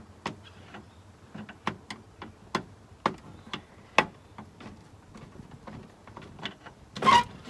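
Irregular sharp plastic clicks and taps as hands work at the frame and winder of an old Fiamma plastic roof vent to free it, with a louder burst of noise near the end.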